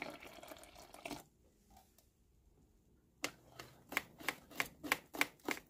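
Wire whisk beating cake batter in a mixing bowl, its wires clicking against the bowl in a steady rhythm of about three strokes a second, starting about three seconds in. Before that, the sound of milk pouring into the batter fades out within the first second.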